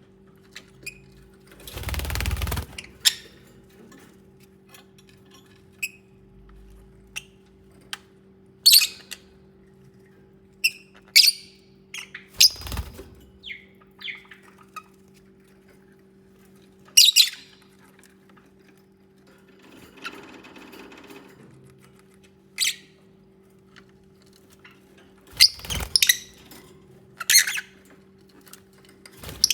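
Lovebirds giving short, sharp chirps and squawks, scattered singly and in quick pairs. A few dull thumps and a brief stretch of rustling mark the birds moving about. A steady low hum runs underneath.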